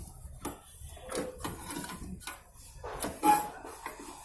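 Scattered clicks and knocks of hand tools and metal parts being handled while a replacement magnetron is fitted into a microwave oven. The loudest is a sharp clink about three seconds in, with a brief ringing.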